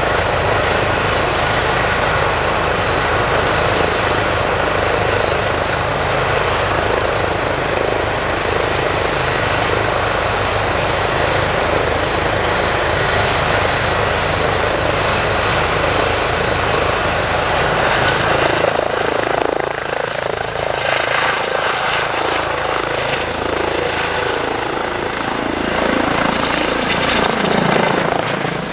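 Airbus EC135 twin-turbine rescue helicopter with Fenestron tail rotor running on the ground at flight power, its turbines and main rotor making a steady sound with an even rotor beat. In the last several seconds the sound changes as it lifts off and climbs away.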